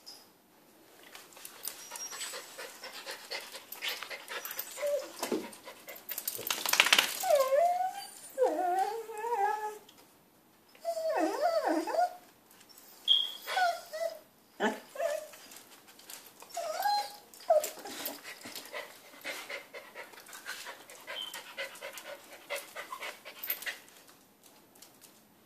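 A corgi whining in a string of high, wavering whines that rise and fall, begging for the leashed dog beside it to be let go. There is a brief loud, noisy burst about seven seconds in.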